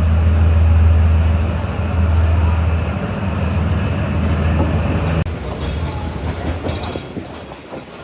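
Diesel train passing close by: a loud, steady low engine drone. About five seconds in it drops suddenly to a quieter clatter of wheels on the rails.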